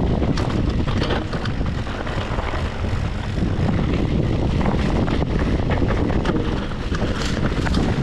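Unica FS01 full-suspension mountain bike being ridden over a rough trail: steady tyre rumble and wind rushing on the microphone, with scattered clicks and rattles from the bike.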